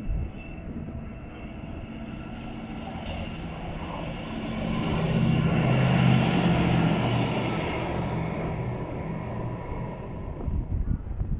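VolkerRail on-track engineering machine DR77801 passing on the running line, its diesel engine and running gear growing louder to a peak about six seconds in, then fading. Wind buffets the microphone near the start and again near the end.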